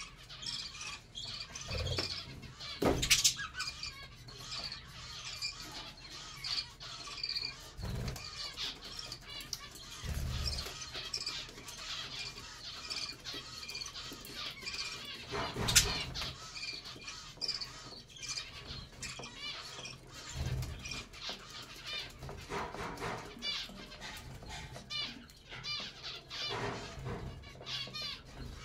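Budgerigars chattering and chirping in a continuous busy stream of short warbling notes. A few dull thumps break in, the loudest about three seconds in and near the middle.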